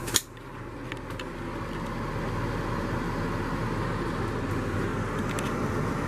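Steady whooshing hum of a running air conditioner fan, growing louder over the first couple of seconds and then holding level, with a sharp click just at the start.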